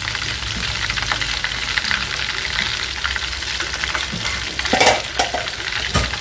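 Batter-fried shrimp sizzling and crackling steadily in hot oil in a wok, with a couple of louder knocks near the end.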